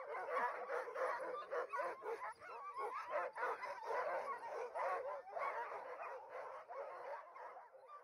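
A pack of harnessed sled dogs barking, yelping and whining, many at once without a break, as they strain at the gangline.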